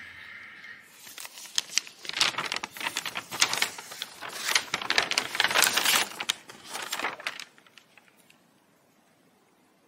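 A paper shopping bag rustling and crinkling as a flash drive in its card-and-plastic retail pack is pulled out, a dense run of crackles and small clicks that stops about seven and a half seconds in.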